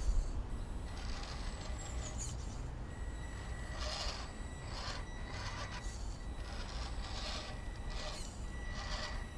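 Electric motor and gearbox of a small RC rock crawler whirring in repeated short surges as it is driven. A thin steady whine runs underneath.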